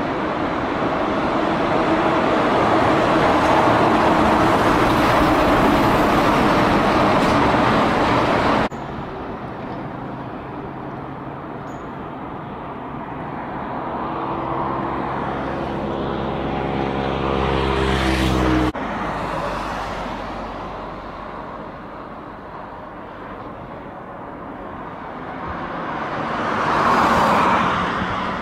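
Road traffic noise in three abruptly cut field recordings. First comes a dense roar of passing vehicles. Then an engine drones, growing louder and slightly higher in pitch until it cuts off. Last, a quieter stretch where one vehicle swells and passes near the end.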